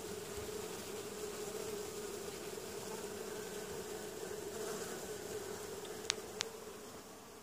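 Honeybee colony humming steadily, a massed buzz of bees clustering and festooning in a hive. Two sharp clicks about six seconds in.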